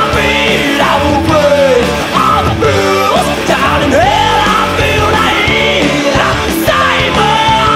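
Hard rock recording playing loud and steady: a full band, with a lead line that bends up and down in pitch.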